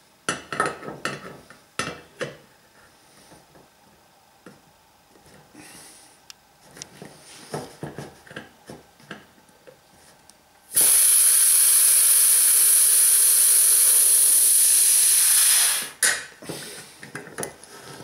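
Pliers clicking and scraping on the top of a 5-litre beer keg as they grip and pry at its tap valve. About ten seconds in, a loud hiss starts suddenly and lasts about five seconds, tapering off at the end: the keg's leftover gas pressure escaping as the valve is torn open. A few more metal clicks follow.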